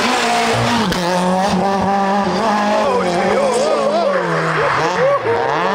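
Peugeot 106 rally car's engine under hard throttle as it drives past and pulls away, pitch holding high then dipping and rising again with lifts and gear changes near the end.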